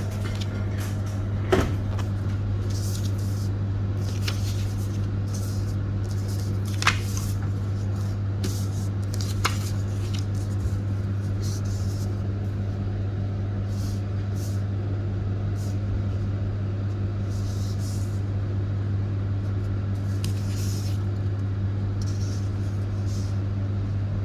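A steady low electrical or machine hum, with a few faint clicks and three brief falling chirps.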